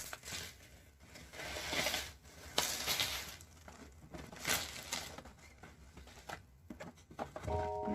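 Packaging being handled while a coffee maker is unboxed: crinkling and rustling in uneven surges, with a few sharp clicks. Music tones come in near the end.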